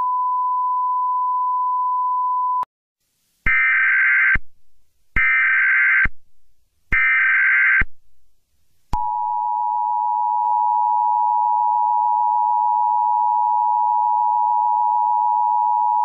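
Emergency Alert System broadcast signals. A steady single-pitch bars-and-tone test tone cuts off about two and a half seconds in. Then come three short warbling SAME digital header bursts encoding an Emergency Action Termination. From about nine seconds in, the steady two-tone EAS attention signal (853 and 960 Hz together) sounds.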